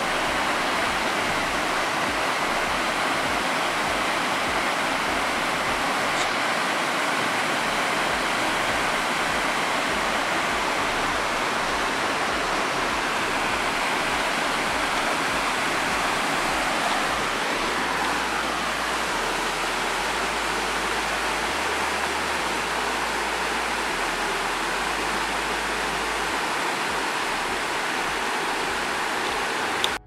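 Waterfall water rushing and splashing over rocks, a loud, steady rush that holds the same level throughout.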